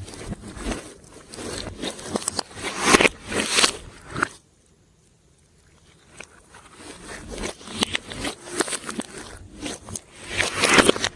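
Hands squishing, poking and stretching glossy slime: dense sticky crackles and small pops, stopping for about a second and a half near the middle before starting again.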